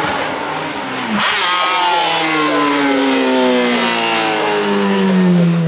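Race car engine running hard, with a short break about a second in, then its note falling steadily.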